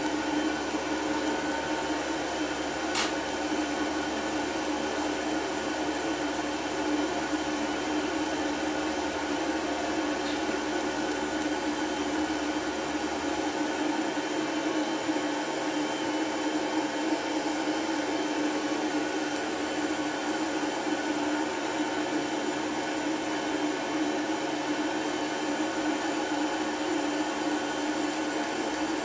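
Fiber laser machine running as it cuts shapes into thin brass sheet: a steady whirring hum with several fixed tones, and a single sharp click about three seconds in.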